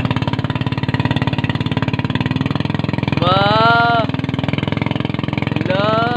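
An engine runs steadily with a fast, even pulsing. Over it a voice rises in pitch in two long calls, about three seconds in and again near the end.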